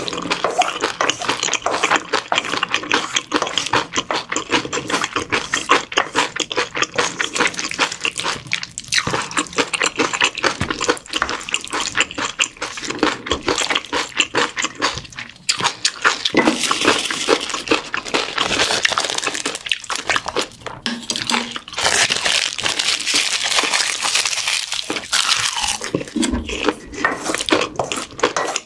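Wooden spoon stirring and mixing rice bibimbap with radish salad, kimchi and tuna in a stainless steel bowl: a steady, dense run of quick scrapes and clicks against the metal bowl.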